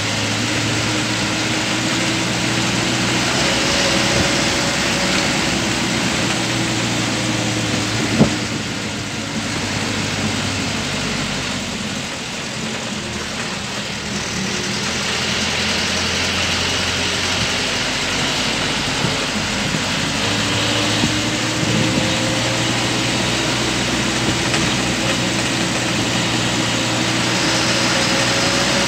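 Motor vehicle engine running while driving, heard from on board. The engine tone rises through the first several seconds, eases off and quietens around the middle as the vehicle slows, then builds again. A single sharp knock comes about eight seconds in.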